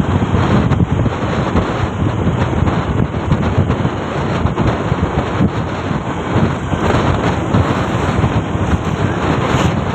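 Wind buffeting the microphone on a moving motorcycle: a loud, steady rumbling rush, with the bike's running noise under it.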